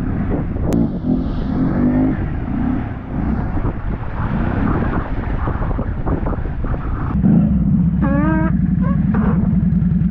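ATV engine running with wind buffeting the microphone; about seven seconds in, a steady low engine note takes over, with a few brief wavering rises in pitch just after.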